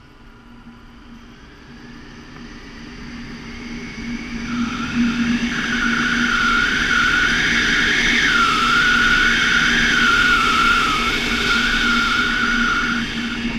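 Wind rushing over the camera microphone of a tandem paraglider in a steep spiraling turn. It builds over the first few seconds as airspeed rises and stays loud through most of the turn, with a wavering high whistle riding on it.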